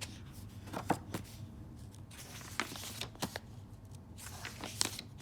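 Pages of a picture book being handled and turned: several short paper rustles with a few light taps.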